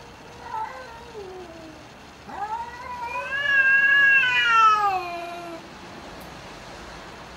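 Domestic cats in a fighting standoff, yowling threats. One drawn-out yowl slides down and fades in the first second and a half. A louder, longer yowl follows about two seconds in; it rises, holds, then slides down in pitch.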